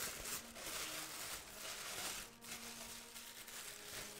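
Faint rustling of gift-wrapping paper as a wrapped mug is opened by hand.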